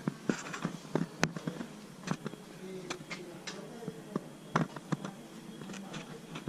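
Irregular light knocks and clicks, a dozen or so at uneven spacing, over faint background noise.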